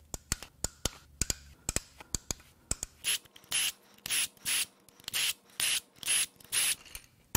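Ratchet wrench loosening the camshaft bearing cap bolts on an aluminium cylinder head. It first gives single sharp clicks, about four a second, then quicker, longer rattling strokes about half a second apart as the bolts spin free.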